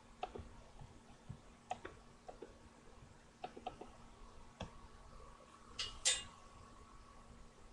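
Scattered clicks of a computer mouse and keyboard, a few at a time, with the loudest pair about six seconds in, over a faint steady hum.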